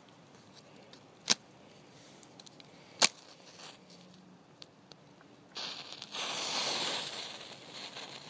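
A paper match struck twice on a matchbook's striker strip, two sharp scrapes about two seconds apart, the second one lighting it. A few seconds later the matchbook's row of match heads flares up all at once with a loud hissing rush that lasts about two seconds and fades.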